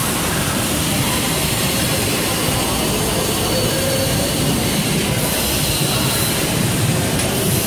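Steady, even machinery noise, a dense rush with no rhythm or distinct strikes.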